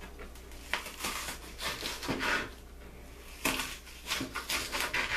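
Raw onion being sliced with a kitchen knife and the slices pushed about on a cutting board: a run of irregular crisp scraping and rustling strokes.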